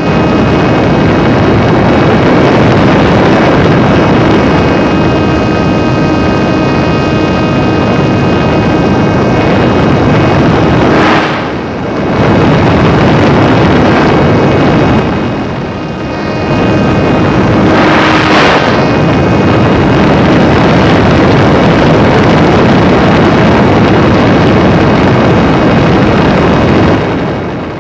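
Onboard recording of a home-made RC SU-27 model plane in flight: loud, steady wind rush over the microphone with the whine of its small electric motor. The sound dips briefly twice, near the middle.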